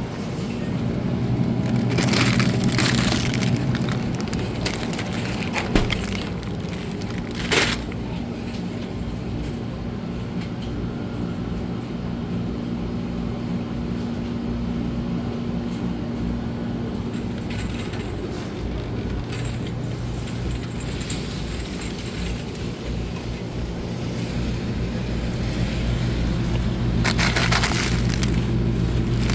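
Steady low hum of supermarket background noise, broken by brief rattling clatters about two seconds in, again at about seven and a half seconds, and near the end.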